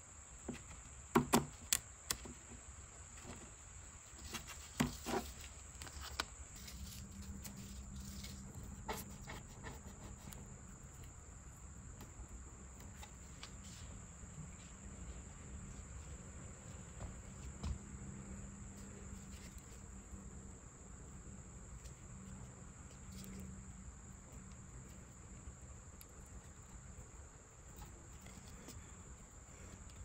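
A few sharp snips of scissors cutting tape in the first five seconds, over a steady faint high-pitched whine; a low hum joins about seven seconds in.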